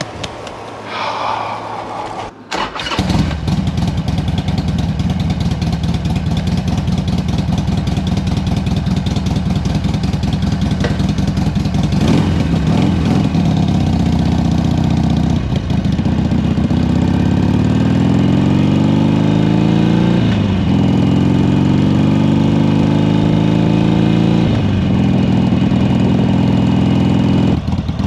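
Harley-Davidson Sportster 1200's air-cooled V-twin comes in loud about two and a half seconds in and runs under load. From the middle on, its revs climb and drop back three times, as the bike accelerates and upshifts through the gears.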